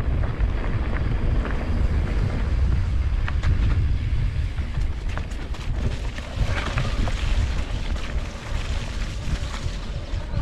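Wind buffeting the microphone of a moving camera, a heavy uneven low rumble throughout, with scattered small clicks and rustles from travel over a rough dirt trail.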